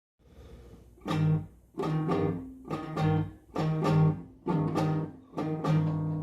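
Guitar strumming chords in a steady, even rhythm. It enters faintly and grows full about a second in.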